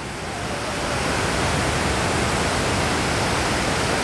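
Steady rush of running water, an even hiss that swells a little in the first second and then holds.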